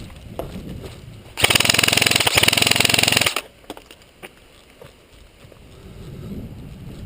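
Airsoft electric gun firing one full-auto burst of about two seconds, a fast, even rattle of shots starting about one and a half seconds in. Low rustling and scuffing of movement before and after.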